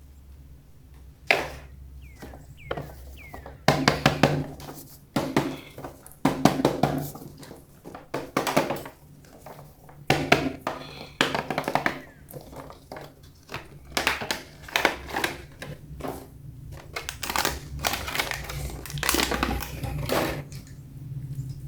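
Plastic toy packaging crinkling and plastic toy parts clicking and knocking as they are unpacked by hand, in uneven bursts.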